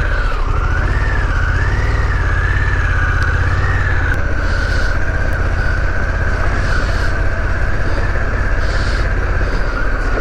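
Harley-Davidson Pan America's 1250 V-twin running steadily while riding, with wind and road rumble. Over it sits a high whine that wavers up and down for the first few seconds, then holds steady.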